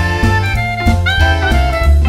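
Background jazz music: saxophone or brass melody over bass and drums with a steady beat.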